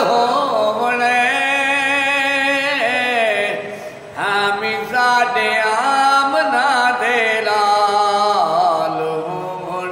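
A man singing sana khwani, Urdu devotional praise poetry, solo: long held notes with a wavering, ornamented melody. He breaks off briefly for breath about four seconds in, then carries on.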